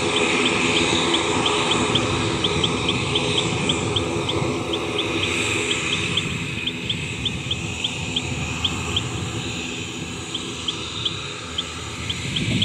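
Steady aircraft engine noise at the airfield, its low engine tones fading over the first couple of seconds and the whole sinking slightly toward the end. Through it, a short high chirp repeats about three times a second, from an insect or bird.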